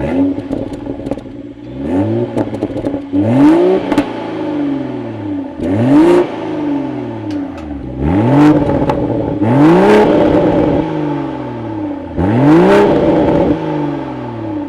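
The 2023 Toyota Supra's 3.0-litre turbocharged inline-six, revved from idle about six times in short blips. Each blip climbs quickly in pitch and then falls back to idle.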